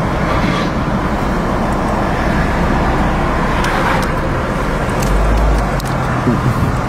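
Steady car and road traffic noise, with a deep rumble swelling briefly about five seconds in.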